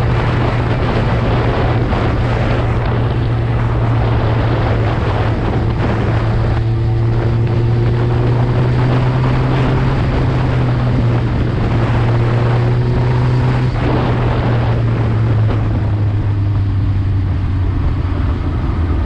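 Suzuki GSX-R1000 sportbike's inline-four engine running steadily under way through an Akrapovic full exhaust, with wind noise on the microphone.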